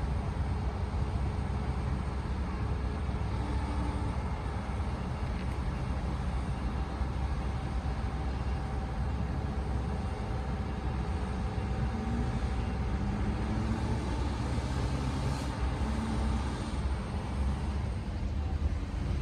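Hydraulic excavator's diesel engine running under load, a steady low rumble with a faint whine from the hydraulics.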